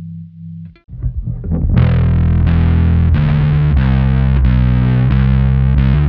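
Electric bass with tremolo, its notes throbbing regularly in volume, cut off under a second in. A distorted electric bass then plays a riff of sustained notes at steady volume with the tremolo switched off.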